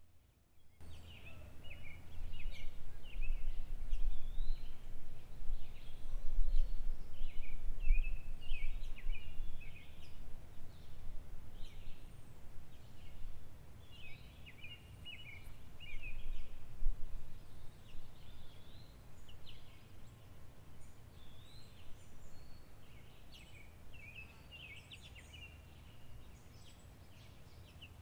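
Small birds chirping and twittering in a busy, overlapping chorus, starting just under a second in. Under it runs a low rumble that swells for several seconds and then fades.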